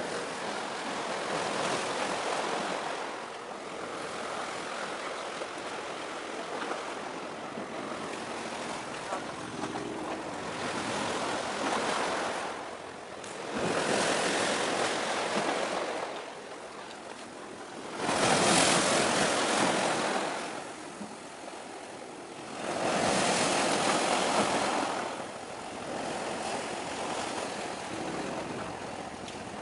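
Waves breaking and washing against the shore, swelling into louder surges every few seconds over a steady rushing background.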